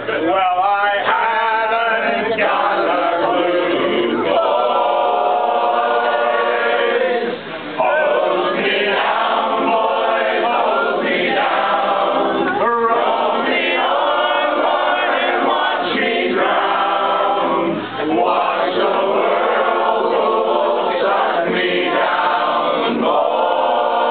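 A roomful of voices singing a sea chantey together, unaccompanied, in a loud full chorus, with two brief breaks between lines about 7 and 18 seconds in.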